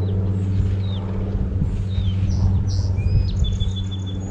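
Small birds chirping, with short downward-sweeping calls and a few brief whistles, over a steady low hum.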